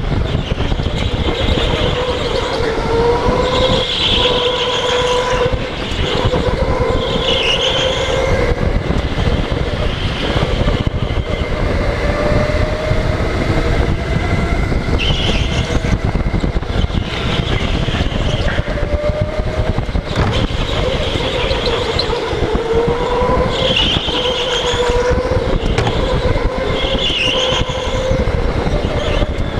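Go-kart driven hard around an indoor track, heard from on board: a steady rumble and rush with a motor whine that climbs and drops with speed, and short high squeals from the tyres every few seconds through the corners.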